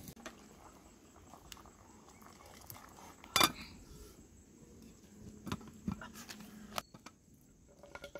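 Scattered clicks and knocks of cooking over an open wood fire on stones: firewood being pushed under the pot and a metal cooking pot being handled. One sharp clank about three and a half seconds in, with a few lighter knocks in the second half.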